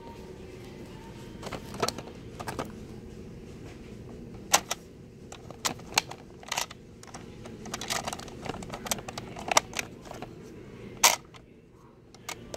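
Irregular sharp plastic clicks and taps, about a dozen over the stretch, from fingers working a boxed toy police cruiser through its packaging, over a low steady hum.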